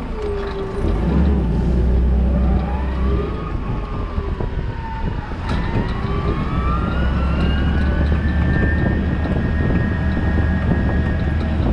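Toyota counterbalance forklift driving, heard from the driver's seat: a steady low rumble with a whine that rises and falls in pitch as it speeds up and slows, then climbs about halfway through and holds steady.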